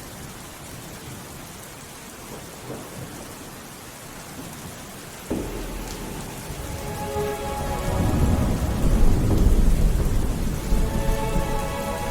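Steady rain falling, then a roll of thunder that breaks in suddenly about five seconds in, swells, and rumbles loudest a few seconds later.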